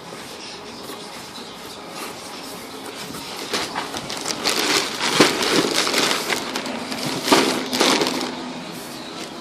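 Packaging being handled and crumpled during an unboxing: a busy run of crackling and scraping noises that swells about halfway through and dies away near the end.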